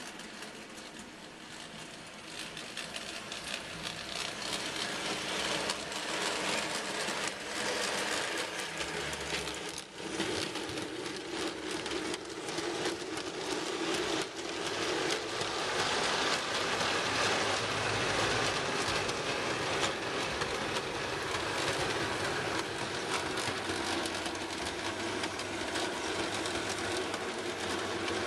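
Model Terrier tank locomotive hauling a rake of coal trucks along the layout: the whir of its small electric motor with the rattle of wagon wheels on the track, getting louder over the first few seconds as the train approaches.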